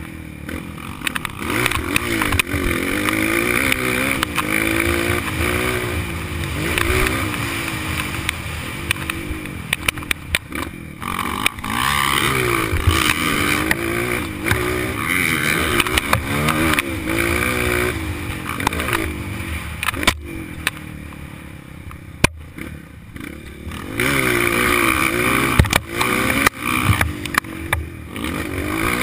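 Honda CRF230 dirt bike's four-stroke single-cylinder engine under way, its pitch climbing and dropping again and again with throttle and gear changes, easing off for a few seconds about two-thirds of the way through. Scattered sharp knocks come through on top.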